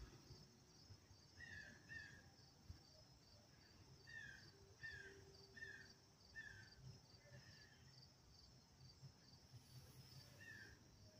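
Faint outdoor quiet with an insect, likely a cricket, chirping in a steady pulse about three times a second. A bird gives short, downward-sliding call notes: two, then a run of four, then one more near the end.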